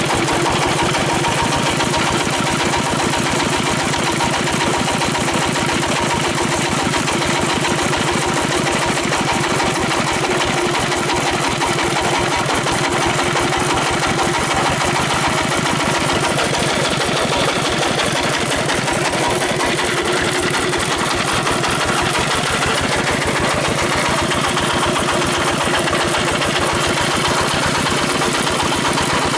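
Dompeng diesel engine driving a generator, running steadily with a fast, even beat that holds constant throughout.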